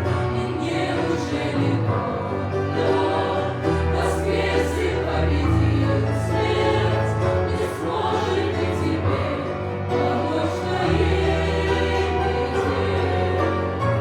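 Choir singing a Christian song with instrumental backing and a steady bass line.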